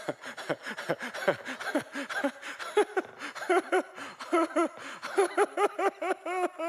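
A man laughing into a microphone in a long run of quick, high-pitched laughs, ending in one long held vocal note near the end.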